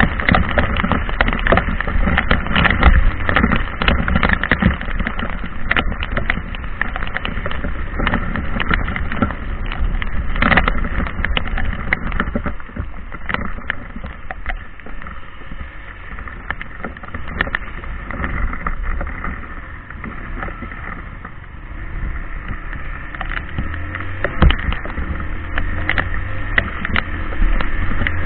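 Heavy rain, a dense patter of drops ticking on a nearby surface over a low rumble. It eases somewhat in the middle and builds again near the end.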